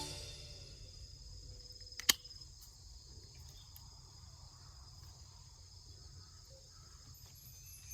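Faint, steady insect chirping, with a single sharp click about two seconds in.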